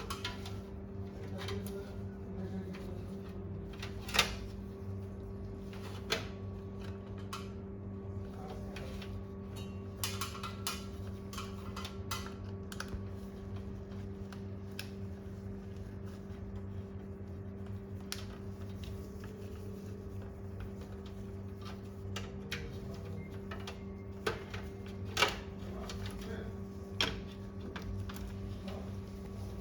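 Scattered clicks and knocks of a drive caddy holding SSDs being handled and slid into a desktop workstation's hard drive slot, over a steady low hum. A few sharp knocks stand out, two of them near the end.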